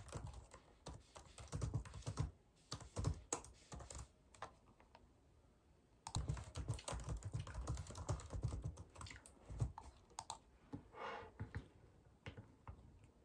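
Quiet typing on a low-profile computer keyboard: quick runs of key clicks broken by pauses with only a few scattered taps. Near the end there is a short scratchy sound.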